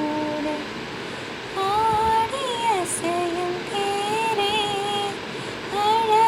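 A woman sings a Tamil lullaby (thalattu) in long, held notes that glide up and down. She breaks off briefly about half a second in and picks the melody up again about a second later.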